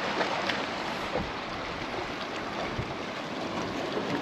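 Steady rushing noise of wind and sea, with a few faint ticks.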